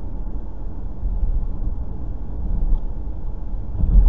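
Steady low rumble of tyre and engine noise inside a moving car's cabin, swelling briefly louder near the end.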